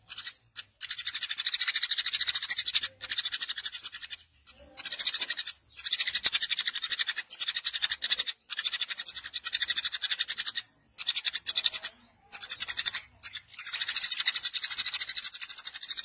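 Eurasian tree sparrow (Passer montanus) chattering persistently in fast, high, rasping bouts of a second or two, broken by short pauses.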